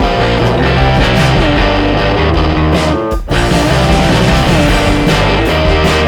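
Background music: loud guitar-driven rock with a steady beat, dropping out briefly about three seconds in.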